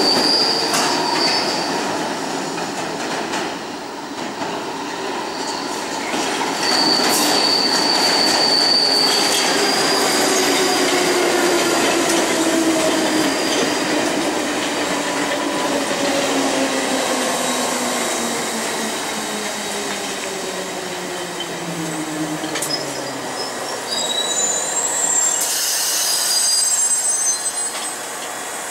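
London Underground train running into the platform and braking to a stop, with wheels squealing on the rails. Its motor whine falls steadily in pitch as it slows, and there is a short burst of hiss near the end.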